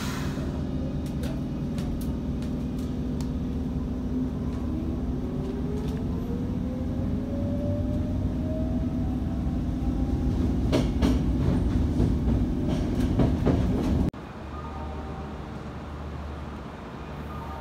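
Kyoto Municipal Subway 10 series train pulling away from a station, heard from inside the car: a steady hum with a motor whine that rises in pitch as it accelerates, growing louder, with clicks of the wheels over rail joints. About 14 seconds in, the sound cuts off abruptly to a quieter, steady station background.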